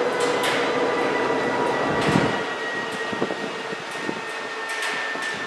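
Orenda OTF-3 industrial gas turbine coasting down after shutdown: a steady rushing with a whine that sinks slowly in pitch, the rotor turning down slowly because only the oil pump drags on it. A low thump about two seconds in.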